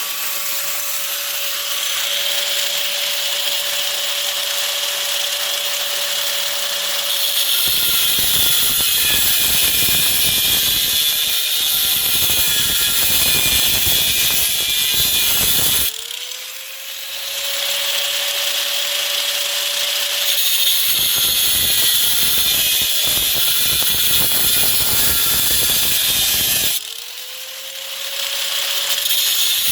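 Power tool with an abrasive cut-off wheel cutting through a stainless steel knife blade. The motor whines steadily at first, then grinds in two long passes, and twice it is briefly lifted off and spins back up. The work goes in short passes so the blade does not get too hot and lose its temper.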